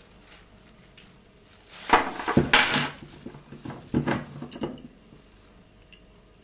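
Metal parts of an all-metal slingshot clinking and rattling as it is handled and taken apart, in two short bursts of clatter about two and four seconds in, with a faint click about a second in.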